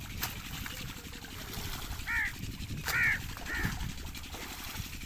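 A bird gives three short calls, about two, three and three and a half seconds in, over the steady sound of irrigation water flowing in an earthen field channel.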